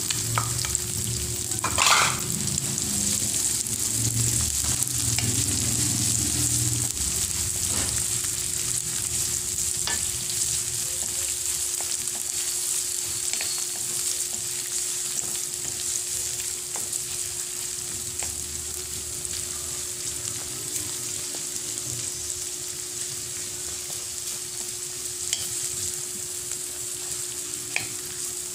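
Chopped onion and garlic sizzling steadily in hot oil in a wok, stirred with a spatula that knocks against the pan now and then, loudest about two seconds in. A steady low hum runs underneath.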